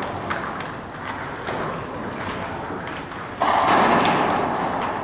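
Table tennis balls ticking off bats and tables, a run of short, irregular clicks from rallies. A louder swell of noise comes in about three and a half seconds in.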